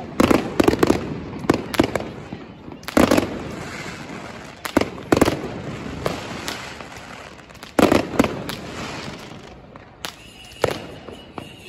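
Fireworks exploding: a string of sharp bangs at irregular intervals, several loud ones each followed by a rolling echo.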